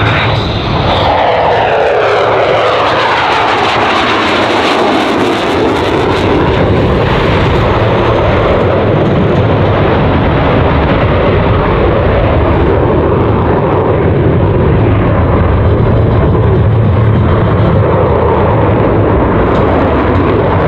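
F-22 Raptor's twin F119 jet engines passing, loud throughout: the pitch falls over the first few seconds as the jet goes by, then the jet noise holds steady.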